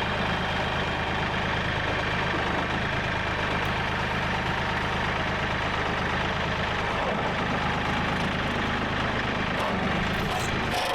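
An engine idling steadily, with an even drone that does not change pitch.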